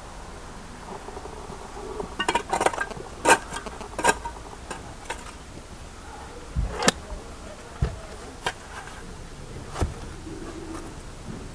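Stone blocks knocking and clacking as they are handled and set in place: a quick cluster of sharp knocks a couple of seconds in, then scattered single knocks, a few with a dull thud.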